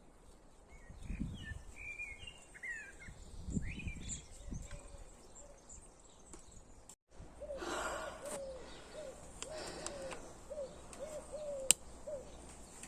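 Birds calling: a few quick chirping notes, then a run of about ten short, low hoot-like notes at a steady pitch, a couple each second. Several dull low thumps sound in the first half, and a sharp click near the end.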